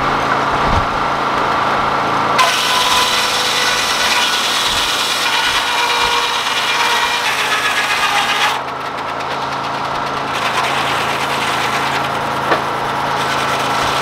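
Large Frick circular sawmill blade ripping a board off a squared log: a loud, hissing cut from about two and a half seconds in until about eight and a half seconds, over the steady drone of the Detroit Diesel engine driving the saw. There is a single sharp click near the end.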